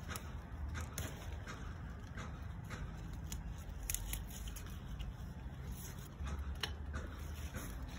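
Bean vine leaves rustling and crackling as green beans are picked by hand, with scattered sharp clicks over a steady low rumble.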